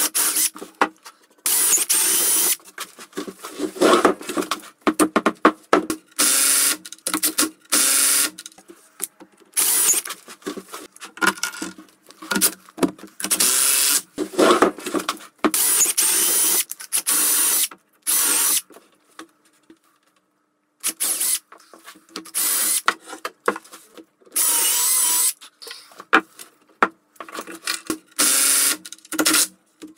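Cordless drill-driver drilling and driving screws into a wooden frame in many short runs, the motor starting and stopping. There is a silent gap of about two seconds a little past halfway.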